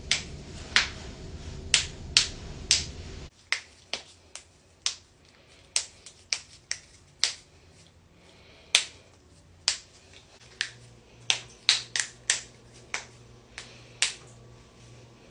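Knuckle joints cracking: a long series of sharp single pops at an uneven pace of one to two a second. The low background rumble drops away about three seconds in.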